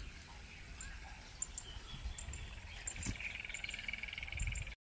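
Faint rural outdoor ambience: a steady high insect drone, scattered short high chirps, and a faint trill from about three seconds in, over a low rumble.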